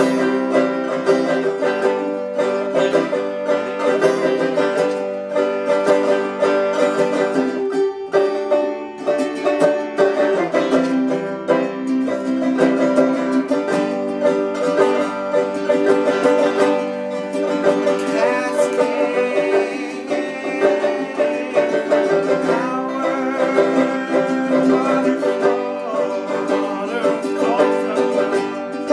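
Acoustic plucked string instrument, finger-picked, playing a busy, steady run of notes in a folk or bluegrass style.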